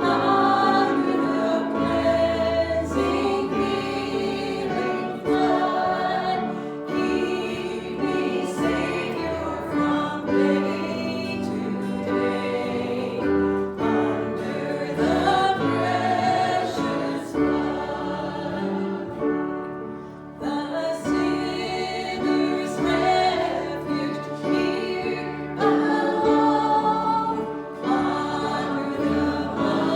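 A group of voices singing a gospel hymn together, with sustained notes over a low accompaniment.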